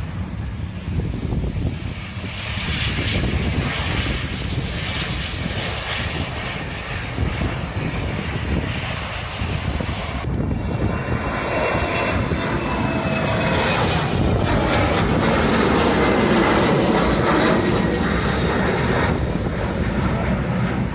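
Aeroplane engines heard from the ground as a plane passes. About halfway through the sound changes abruptly. Then a high whine falls slowly in pitch as the noise grows to its loudest, and it eases off near the end.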